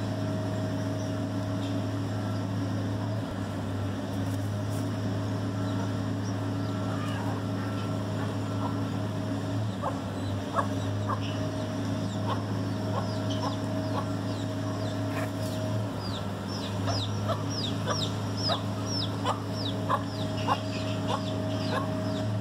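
Chickens clucking in short, repeated calls that begin about ten seconds in and grow more frequent, over a steady low mechanical hum.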